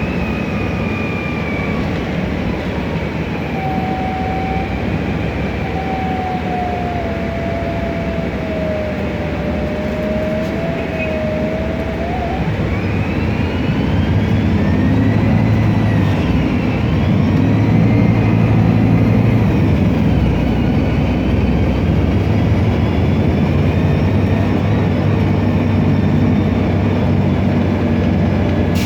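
Interior ride sound of a MAN Lion's Classic city bus: its turbocharged CNG engine rumbles under a whine from the Voith DIWA automatic gearbox. The whine falls slowly as the bus slows, then rises again while the engine runs louder from about halfway through as it pulls away.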